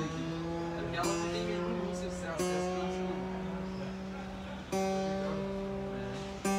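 Giannini Craviola acoustic guitar being tuned: a string is plucked every second or two and left to ring while its pitch slides slightly upward as the tuning peg is turned.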